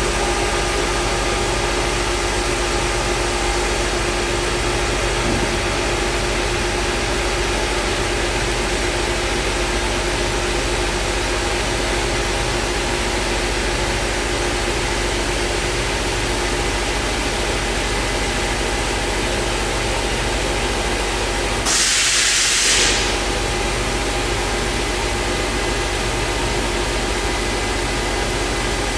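Multicam CNC router running: a steady machine hum with several steady tones in it. About three quarters of the way through, a loud hiss lasts about a second.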